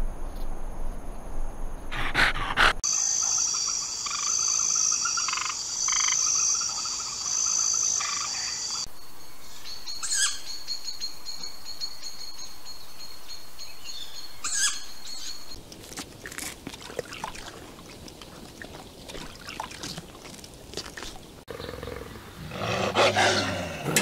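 A changing run of nature sounds: a steady, shrill, high-pitched pulsing trill, then a steady high tone broken by two short calls, then quieter ambience. Near the end comes a louder, low, rough snarling from grey wolves.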